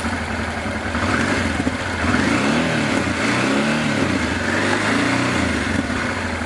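Motorcycle engine idling and then revved up and back down about three times in a row. The revs are raised to test whether the charging voltage or a whining noise changes; the rider suspects a dry alternator bearing.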